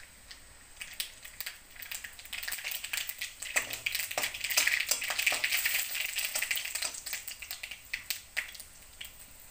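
Mustard seeds crackling and popping in hot mustard oil in a kadhai, a quick run of sharp little pops that grows thicker and louder in the middle and then thins out.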